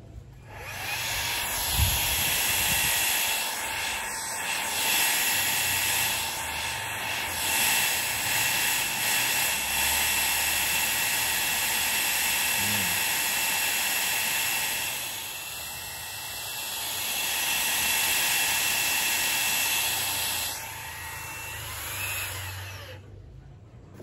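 Xiaomi Mijia mini handheld vacuum cleaner fitted with its long extension nozzle, switched on and running with a steady high-pitched motor whine and rushing air, its loudness rising and falling a few times, then switched off shortly before the end.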